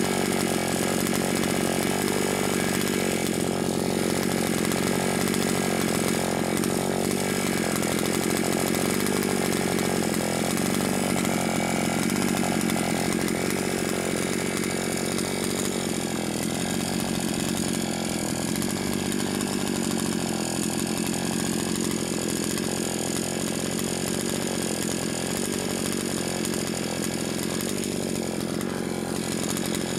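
Two-stroke petrol chainsaw running steadily at a fairly even engine speed, a little softer in the second half.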